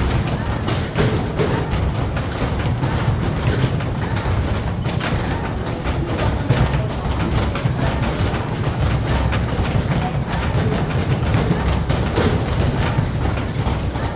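Arcade basketball shooting machine in play: a rapid, unbroken run of knocks and thuds from balls hitting the backboard, rim and ball return, over the machine's game music.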